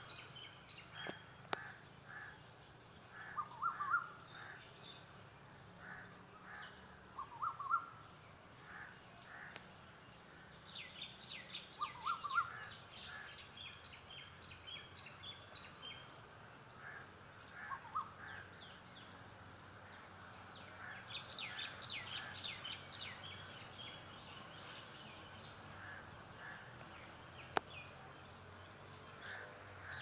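Morning bird chorus: short rising calls every few seconds, with two bursts of rapid high chirping, one about ten seconds in and another around twenty-one seconds in.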